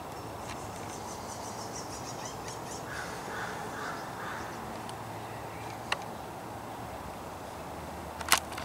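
Birds calling over steady background noise: a run of about four short calls in quick succession three to four seconds in, with faint higher chirps around them. There is a sharp click about six seconds in and a louder one near the end.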